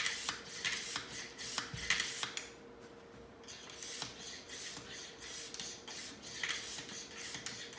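Small hand air pump worked in quick strokes, about two a second, with a short pause about two and a half seconds in; each stroke is a brief rasping puff. It is inflating a rubber glove fitted to a fuel tank, pressurizing the tank for a leak test. A faint steady hum runs underneath.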